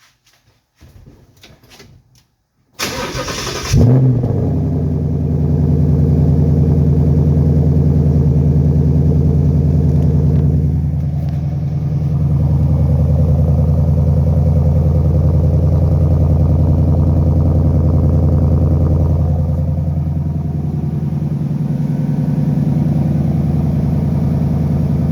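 2020 Ford Mustang GT's 5.0-litre V8 on its stock exhaust being started: a few light clicks, then the starter cranks for about a second, the engine catches with a short loud rev flare and settles into a steady idle that eases down a little twice.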